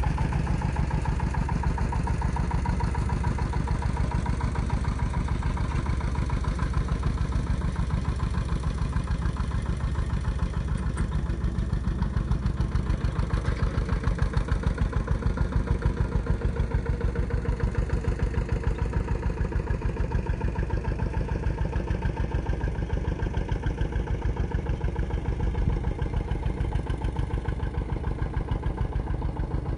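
Two-wheel walking tractor's single-cylinder diesel engine running steadily with a fast, even chugging while it pulls cage wheels through a wet rice paddy.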